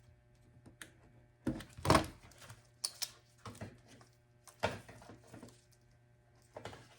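A series of sharp clicks and knocks as the excess section of a segmented armor strip is cut off and handled, loudest about two seconds in.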